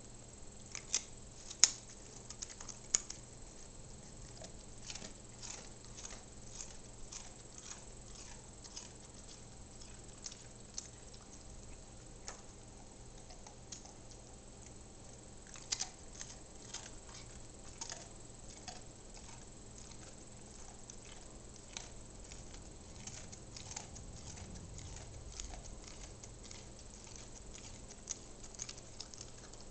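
A dog crunching a Milk-Bone dog biscuit: an irregular string of crisp crunches and clicks. A few louder cracks come in the first few seconds and another about midway.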